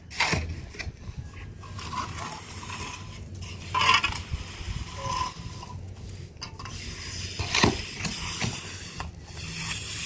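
Steel shovel and mason's trowel scraping through wet cement mortar while hollow concrete blocks are laid in a footing trench, with three louder scrapes or knocks at the very start, near the middle and later on.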